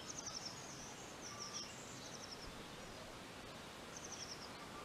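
Faint small birds chirping in short, rapid high trills, three or four times, over a steady low background hiss.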